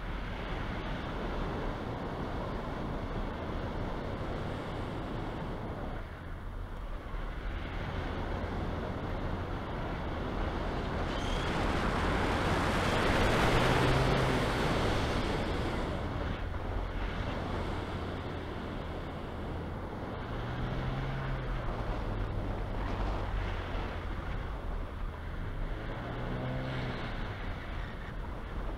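Wind rushing over the microphone of a camera mounted on a hang glider in flight: a steady rush of airflow noise that swells to its loudest about halfway through, then settles back.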